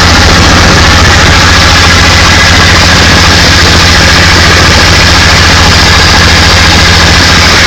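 Rebuilt Studebaker Hercules six-cylinder engine idling steadily and loudly.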